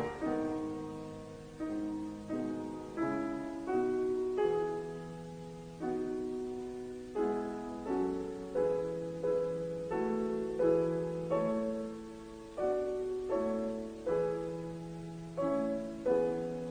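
Solo piano playing a slow, soft passage: single notes and chords struck about once a second, each left to ring and fade, after a louder passage dies away at the start.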